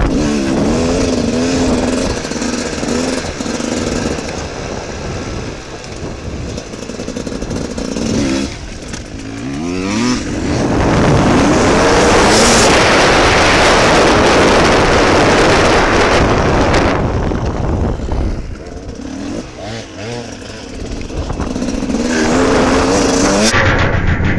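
Dirt bike engine ridden off-road, its pitch rising and falling with the throttle and gear changes. About halfway through a loud steady rush, wind over the helmet microphone at speed, covers it for several seconds.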